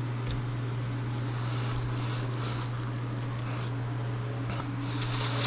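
A steady low hum, with a few faint clicks of parts being handled.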